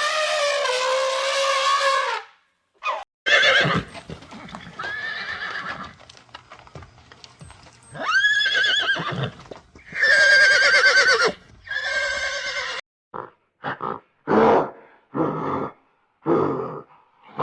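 A horse-family animal whinnying: several long, wavering calls, then a series of short, clipped calls near the end.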